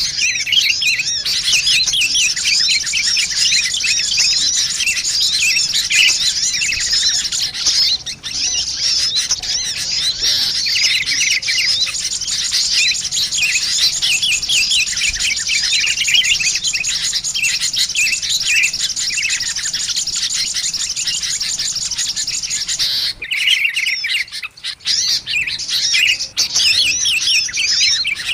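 Dense, rapid high-pitched chirping and chattering of small birds, the calls of sunbirds (kolibri) mixed with sooty-headed bulbuls, played as a bird-trapping lure recording. The chatter is nearly continuous and drops out briefly about five seconds before the end.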